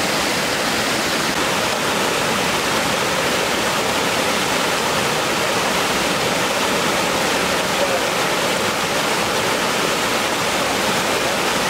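Loud, steady rush of river water pouring over a waterfall.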